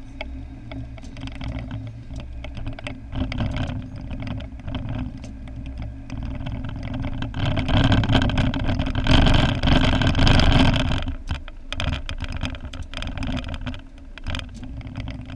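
Car driving, its engine and tyre noise heard from inside the cabin as a steady rumble, swelling louder for a few seconds midway.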